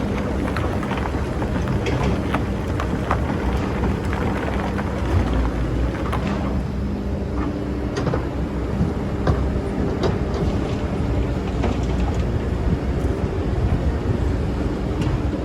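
Excavator's engine running steadily while it digs, with scattered sharp clicks and knocks from the bucket working in sand.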